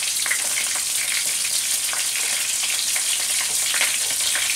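Food sizzling in pans on the stove: a steady frying hiss with small crackles, while a wooden spoon stirs a pan of tomato sauce.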